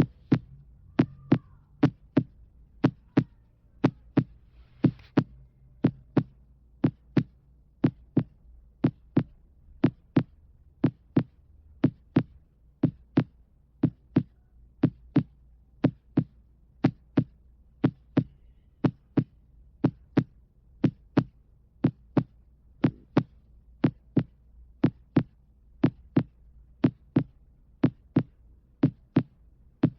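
Heartbeat sounds: a steady, even run of short sharp beats, about two a second.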